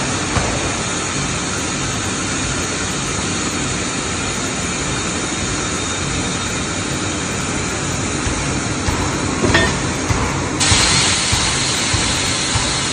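Pipe-end upset forging machinery running with a steady loud industrial din and a few light knocks; about ten seconds in, a loud hiss starts up and carries on.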